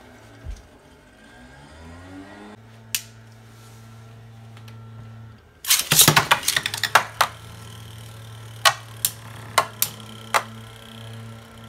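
Beyblade spinning tops in a plastic stadium: about halfway through, a new pair is launched with a dense burst of clattering, then the two tops clack against each other half a dozen times as they spin. A low steady hum runs under it all.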